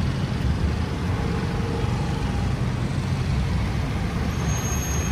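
Heavy city road traffic: a steady, dense rumble of car, bus and truck engines and tyres.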